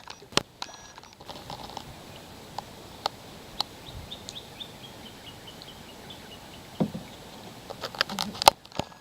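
Scattered sharp clicks and knocks over a steady low hiss, loudest as a cluster near the end. A bird calls a fast series of short chirps that step down in pitch, starting about four seconds in.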